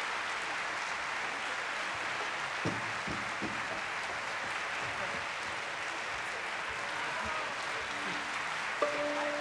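Audience applauding steadily, a dense even clatter of many hands. Music comes in near the end.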